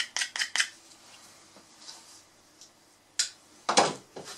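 Hand deburring and handling of thick Kydex sheath pieces on a wooden workbench: a quick run of four short, sharp scrapes, then after a pause a click and a louder knock near the end as pieces are handled on the bench.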